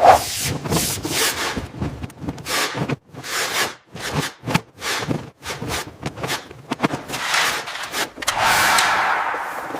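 Irregular scraping and rubbing strokes, one or two a second, with a longer scrape near the end.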